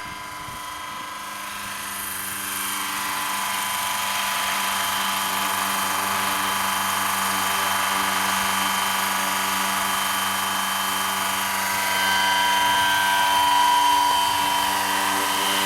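Electric radio-controlled scale JetRanger helicopter with a four-blade, 1600 mm rotor in flight: a steady whine over rotor noise. It gets louder over the first few seconds and again about twelve seconds in.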